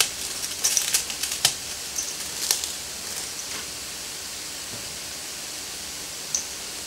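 Dried bread being crumbled by hand into a stainless steel mixing bowl: crisp crackling and crunching for the first few seconds, then only a steady background hiss with one small click near the end.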